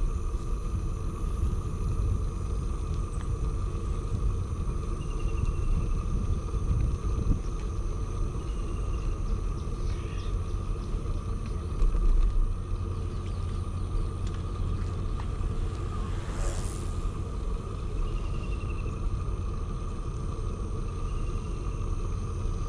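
Steady low rumble of wind and rolling noise picked up by a camera riding on a moving bicycle, with a faint steady whine and a few short, faint high chirps above it.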